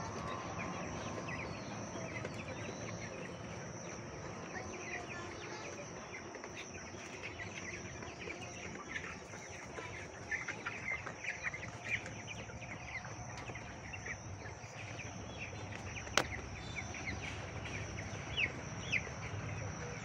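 A flock of young white broiler chickens peeping and cheeping, many short calls overlapping, busiest about halfway through and again near the end. A steady high whine runs beneath, and there is one sharp click about three quarters of the way in.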